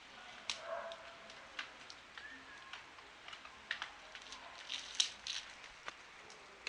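Scattered small clicks and knocks of handling, the loudest about five seconds in, as the air rifle is readied for a suppressed shot.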